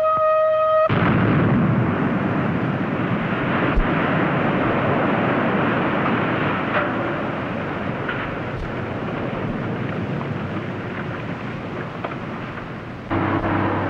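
A blast-warning siren holds one steady tone and cuts off about a second in. Then an open-pit mine blast goes off: a sudden explosion followed by a long, noisy rumble of rock and dust that slowly dies away over about twelve seconds.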